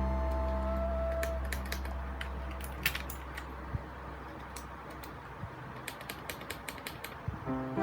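Typing on a mechanical keyboard with Gateron Red linear switches: irregular key clacks, several a second, uneven in loudness.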